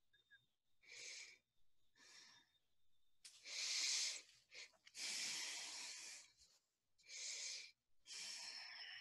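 A person breathing in and out, faint, about six breaths, the loudest near the middle.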